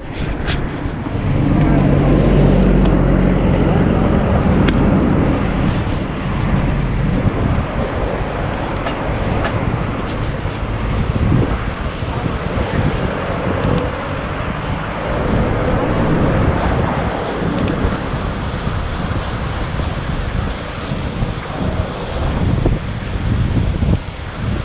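City street sound on a GoPro HERO5's built-in microphone: traffic running past, with wind buffeting the microphone and indistinct voices around.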